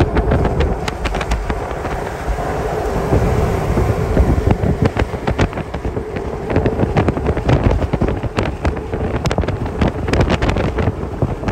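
A vehicle driving at road speed: steady road and wind rumble, with wind buffeting the microphone and many sharp crackles and knocks.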